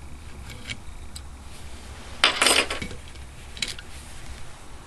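Small steel parts clinking while the Allen screws are being taken out with a hex key: faint ticks, then a short burst of clinks about two and a half seconds in and one more click near the end.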